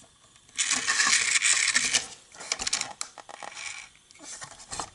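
Plastic toy remote-control car being handled, a clattering rattle for over a second starting about half a second in, followed by scattered light clicks.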